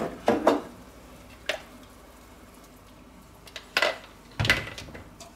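Kitchenware handling: a plastic measuring jug with a metal spoon in it being picked up and moved about by a cast-iron Dutch oven, giving about four short knocks and clinks with quiet between them. The loudest knock comes about four and a half seconds in.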